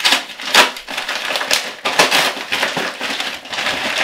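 Paper wrapping being torn open and crumpled by hand: a dense, continuous crinkling and crackling with several sharper, louder rustles.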